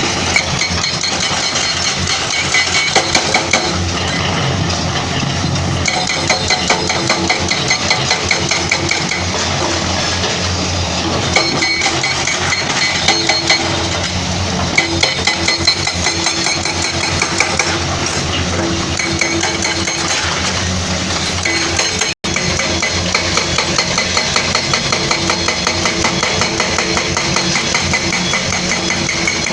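Excavator diesel engine running steadily while a hydraulic breaker hammers rock in repeated bursts of rapid blows, each burst lasting a few seconds.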